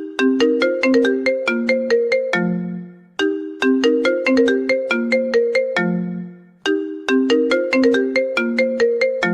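iPhone ringtone playing: a short melody of quick, bright mallet-like notes that ends on a low note and repeats about every three and a half seconds, three times.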